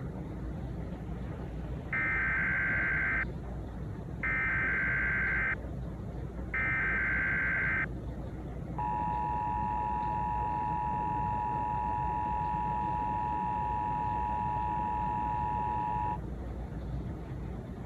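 Emergency Alert System tones: three short bursts of the SAME digital header screech, about a second apart, then the steady two-tone EAS attention signal. The attention signal holds for about seven seconds and cuts off sharply, over a steady low background rumble.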